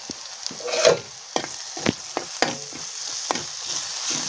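Onions and spices frying in oil in a wide metal pan, stirred with a metal spatula that scrapes and clicks irregularly against the pan. The sizzle grows louder near the end.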